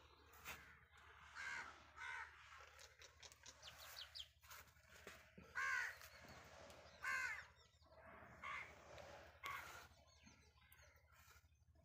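Birds calling in the background: a string of short calls about a second apart, the loudest about six and seven seconds in, with a few faint clicks of handling noise.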